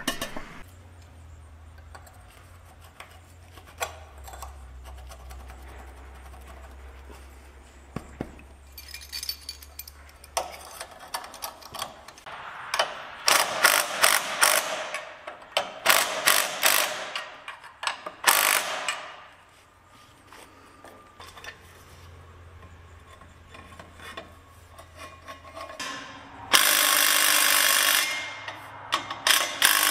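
Handheld cordless power tool driving a pipe stretcher to expand the end of a steel exhaust pipe, running in several short loud bursts of rapid striking. Near the end it runs in one longer continuous burst, tightening a muffler U-bolt clamp nut.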